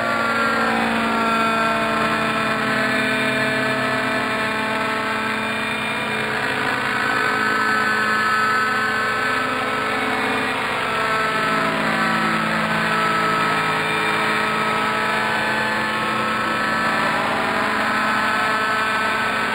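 Radio-controlled model helicopter flying, its rotor and motor making a steady pitched drone that dips and rises in pitch as it manoeuvres.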